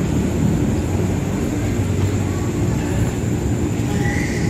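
A train running through the station, a steady low rumble.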